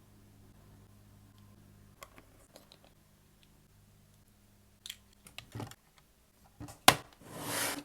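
Small hard plastic pieces being handled, giving scattered light clicks and taps with one sharper click near the end. A short rustling swish follows it.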